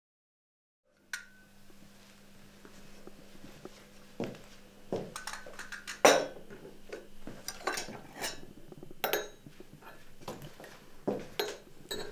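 China coffee cups and saucers clinking and knocking as they are set down on a wooden table, a string of separate clinks beginning about four seconds in, the loudest about six seconds in. It comes over a faint steady hum, after about a second of silence.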